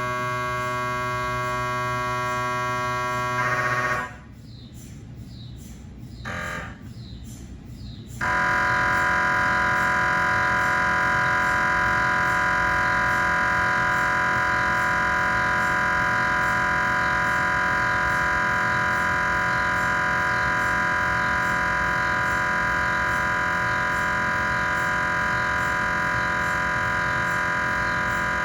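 GE 3T Twinspeed MRI scanner's gradient coils buzzing through cardiac pulse sequences: a steady pitched buzz that stops about four seconds in, a short blip during the quieter gap, then a louder, higher steady buzz starting about eight seconds in.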